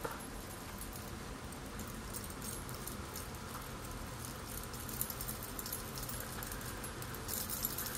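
Faint soft patting and light taps of a Dior Backstage Blender foam makeup sponge being dabbed against the face to press concealer in, over a low steady room hum.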